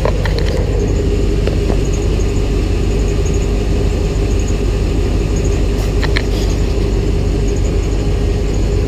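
Vehicle engine running steadily: an even, deep rumble with a constant hum over it.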